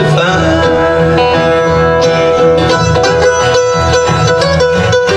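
Live acoustic bluegrass band playing an instrumental break between verses: mandolin and two acoustic guitars picking steadily, with no singing.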